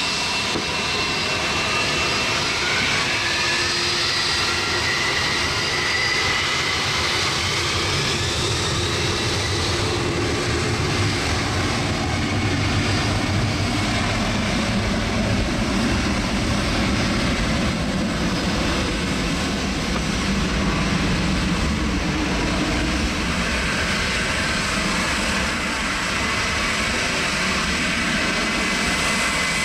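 A Boeing 767-300ER's twin jet engines at takeoff power, a loud steady roar. A whine rises in pitch over the first several seconds, and the low rumble is heaviest in the middle stretch.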